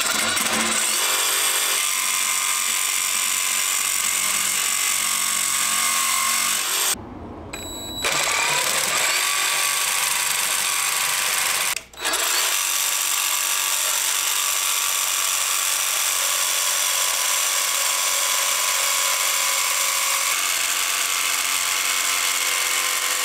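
Cordless DeWalt jigsaw cutting sheet metal, running steadily. It stops for about a second about seven seconds in and cuts out for an instant near twelve seconds.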